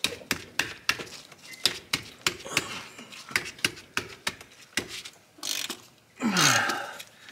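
Irregular clicks and knocks of a ratchet wrench working a plug on a car's rear axle, two to three a second, then a louder short scrape with a falling pitch about six seconds in.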